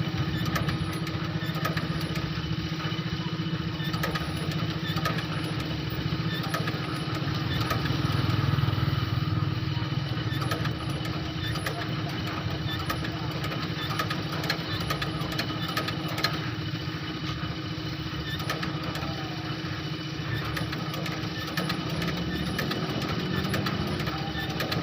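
Motor-driven shoe-sole stitching machine running steadily: a constant hum with a dense run of fast ticks from the mechanism.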